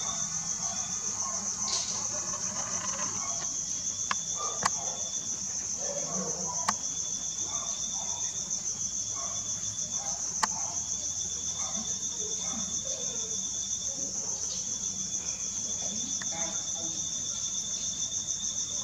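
Night insects, chirping crickets, keep up a steady high trill. A second, lower trill starts and stops in phrases of a second or two. A few sharp clicks stand out, the loudest about ten seconds in.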